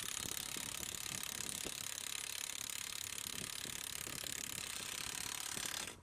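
Fast, continuous mechanical ratcheting clatter that starts abruptly and cuts off just before the end.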